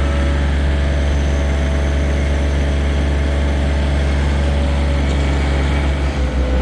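John Deere tractor engine running steadily, with a brief dip in level near the end.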